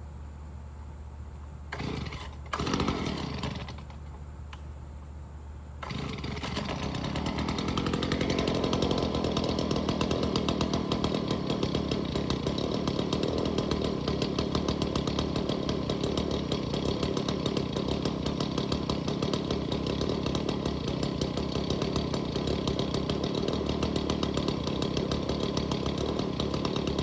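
Stihl BG 50 handheld leaf blower's two-stroke engine being pull-started: two short bursts near the start, then it catches about six seconds in, speeds up over the next two seconds and runs steadily.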